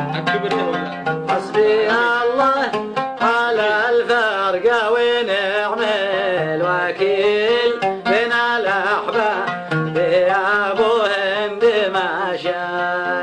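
Instrumental opening of a Middle Eastern song: plucked strings and hand percussion under a melody line that slides and wavers up and down.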